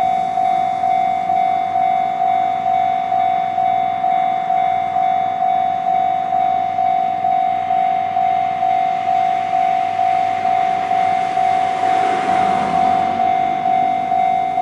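Electronic level-crossing warning bell with the "Chichibu" tone, ringing steadily at about two strikes a second. About twelve seconds in, a Konan Railway 7000 series electric train passes over the crossing, a rush of wheel and rail noise that swells and fades under the bell.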